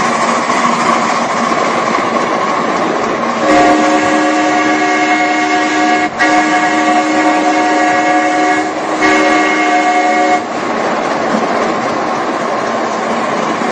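Multi-tone whistle of a live-steam 4-4-2 Atlantic locomotive, sounded in three blasts with the last one shorter. It starts a few seconds in, over the steady rush of the running locomotive and its wheels on the track.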